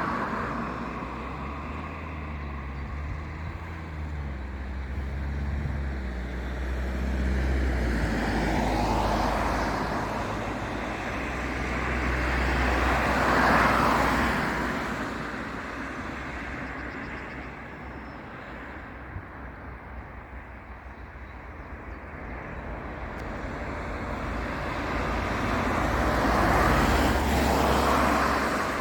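Outdoor vehicle engine noise: a steady low drone, with passing vehicles swelling up and fading away three times, about a third of the way in, near the middle and near the end.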